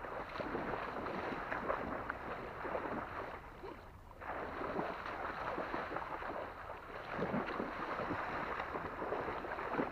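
Shallow water splashing and sloshing irregularly as a big Saint Bernard leaps and bounds through it, with a person wading alongside. The splashing eases off briefly about four seconds in, then picks up again.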